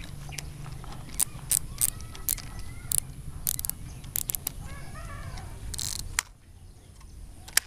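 Abu Garcia Black Max 3 baitcasting reel being cranked to retrieve a lure, with a run of irregular sharp clicks and ticks from its handle and gears. The sound drops away about six seconds in, with one more click near the end.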